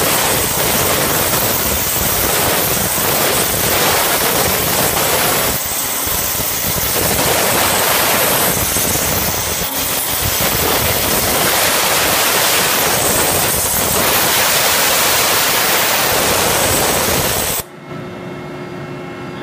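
Waterjet cutter's high-pressure jet cutting through metal plate: a loud, steady hissing rush. It cuts off suddenly near the end, leaving a quieter steady hum with a few faint steady tones.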